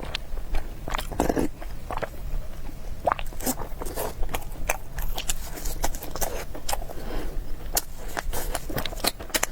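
Close-miked biting and chewing of crisp food: a run of irregular crunches and mouth clicks.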